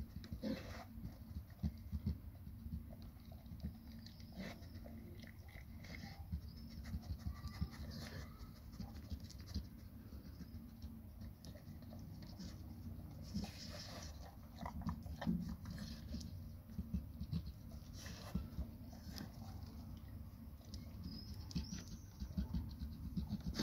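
A Labrador licking and chewing leftover crumbs off paving stones: irregular, quick wet mouth clicks and smacks.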